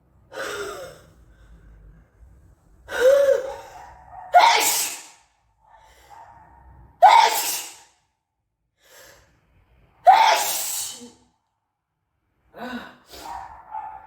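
A person sneezing several times in a row, each loud sneeze coming suddenly, with gasping breaths between them.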